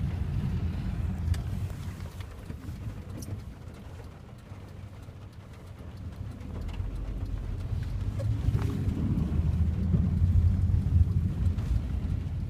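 Heavy rain falling, with a deep low rumble beneath it. The sound dips a few seconds in and swells again in the second half, with a few sharp taps standing out.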